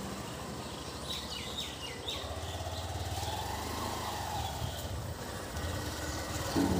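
Motor vehicle travelling along a road: a steady low engine hum with road noise, and a few quick high chirps about a second in.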